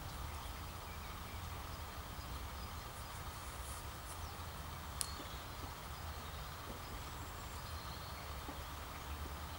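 Outdoor garden ambience: a steady low rumble with faint, scattered bird chirps, and one sharp click about five seconds in.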